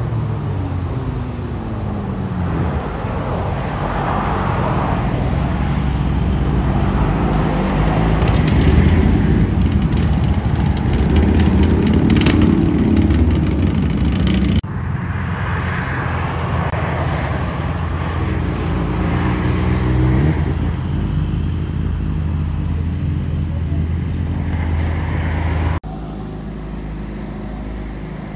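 Motorcycle engines and passing traffic: bikes go by and rev, their engine pitch rising and falling. Then, after an abrupt cut, engines idle steadily with a rev in the middle, and after another cut the engines are quieter near the end.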